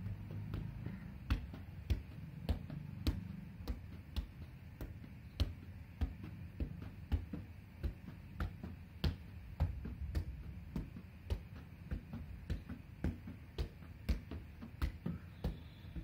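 Soccer ball being juggled: a dull thud each time it is bounced off the knees and feet, about two touches a second with an uneven rhythm, over a low background rumble.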